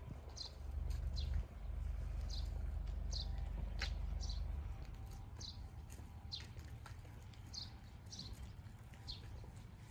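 A small bird chirping over and over, short high notes that drop in pitch, about one or two a second. Under it a low steady rumble runs for the first half and fades out a little before the middle.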